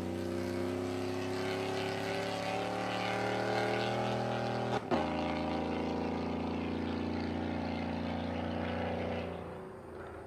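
2014 GMC Sierra's 5.3-litre V8 running through long-tube headers and a Borla ATAK exhaust, with a steady drone whose pitch climbs slowly. About halfway through a brief click comes with a drop in pitch, then the drone holds steady and fades away near the end.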